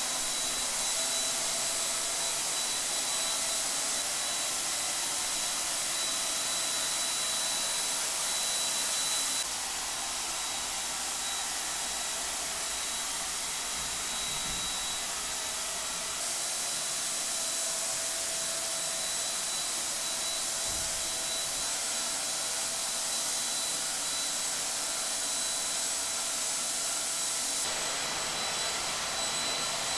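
Electric turbine paint sprayer running steadily, a rushing blast of air with a high whine, as paint is sprayed onto a ceiling. The level and whine shift abruptly about a third of the way in, around halfway, and near the end.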